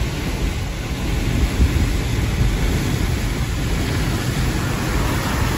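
Steady low rumble and hiss of a four-wheel-drive vehicle driving on a flooded, rain-soaked street, heard from inside the cabin: its tyres running through standing water, with rain on the body.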